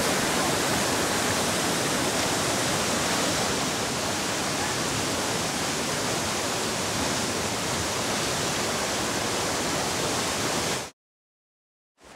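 Whetstone Brook in flood, its turbulent brown floodwater rushing and churning in a steady wash of noise. The sound cuts off suddenly near the end.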